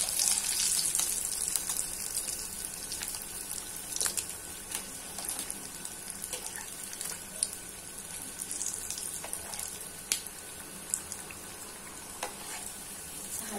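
Batata vadas deep-frying in hot oil in an aluminium kadhai, a steady high sizzling hiss, as they turn golden and crisp. A few sharp clicks are heard as a slotted spoon turns them in the pan.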